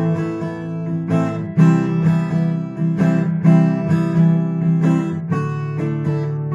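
Acoustic guitar strumming a chord sequence of A minor, C major and D major with a finger lifted from the usual shapes, the chord changing about one and a half seconds in and again near the end.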